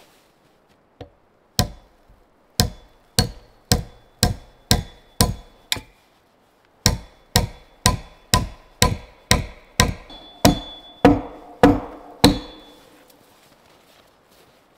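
Hammering blows struck with a hand tool into a log wall: about twenty sharp strikes, roughly two a second, in two runs with a short pause near the middle. The later blows ring.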